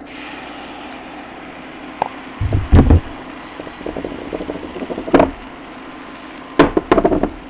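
Kimchi pancake batter sizzling as it is poured into a hot oiled pan, a steady hiss, broken by clusters of knocks against the pan about three, five and seven seconds in.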